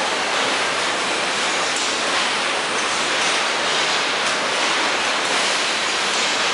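Steady machinery and air noise of a car assembly plant's production line, with a few faint sharp clicks.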